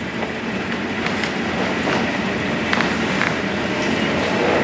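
A steady rumbling noise that grows slowly louder, with a few faint clicks.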